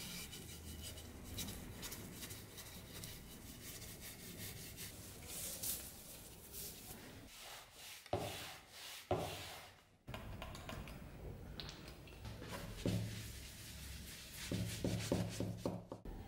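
A cloth rubbing along a beech axe handle as it is wiped down, a run of short scratchy strokes with a couple of brief breaks.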